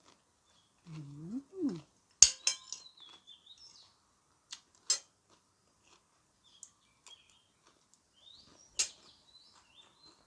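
A short closed-mouth hum, then a few sharp clicks of cutlery on a plate, the loudest about two seconds in. A bird chirps twice in the background.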